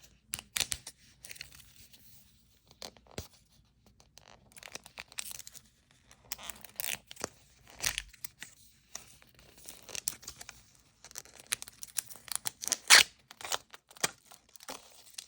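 Plastic wrapping of a Mini Brands package being struggled with by hand: irregular crinkling and short tearing rips, with the loudest rip about 13 seconds in.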